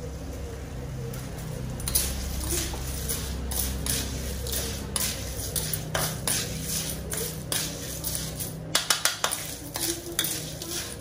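A metal ladle scrapes and clatters in a steel wok as small beach clams (hoi siap) are stir-fried, their shells rattling in the pan. The clatters are irregular, with a quick run of loud ones about nine seconds in.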